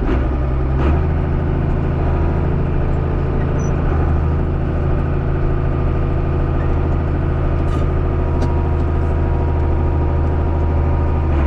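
Diesel engine of farm machinery running steadily, its low note stepping up slightly about a second in, with a few faint clicks later on.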